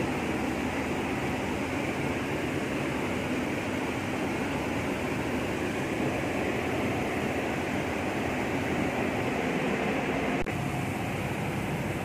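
Steady mechanical whir and hiss of a fan or running machinery, with a single click about ten and a half seconds in.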